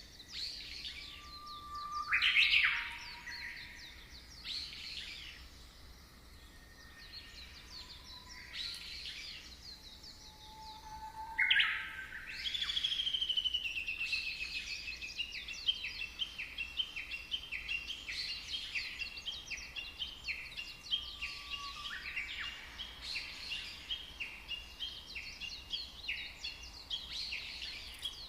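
Songbirds singing: scattered chirps and short whistles, then from about twelve seconds in a rapid, steady run of repeated high notes.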